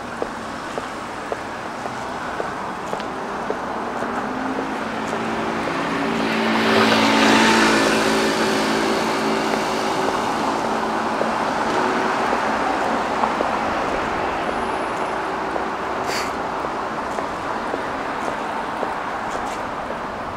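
Street traffic with one motor vehicle passing close: its engine and tyre noise swell to a peak about seven seconds in, then fade slowly. Regular footsteps tick underneath, and there is a single sharp click near the end.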